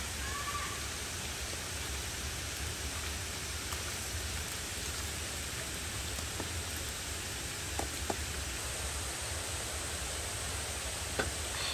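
Steady hiss of rain falling, with a few faint light clicks.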